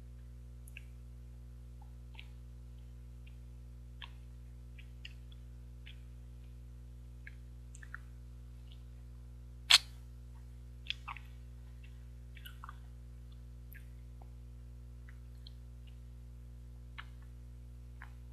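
Close-miked mouth sounds of someone eating an injeolmi ice cream bar: scattered soft lip and tongue clicks, with one sharp, much louder click about ten seconds in and a few smaller ones just after. A steady low hum runs underneath.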